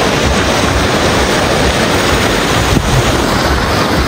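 Sea surf washing and breaking on the shore, with wind buffeting the microphone.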